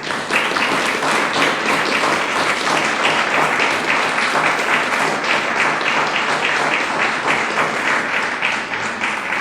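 Audience applauding: many hands clapping together, starting at once and holding steady.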